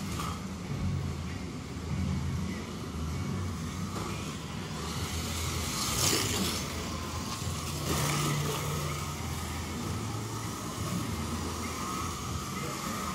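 Scalextric slot cars racing round the track, their small electric motors whining; twice, about two seconds apart near the middle, a car whooshes past close by.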